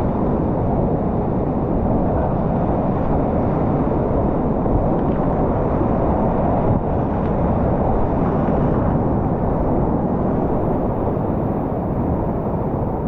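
Whitewater rapids rushing: a loud, steady roar of churning river water.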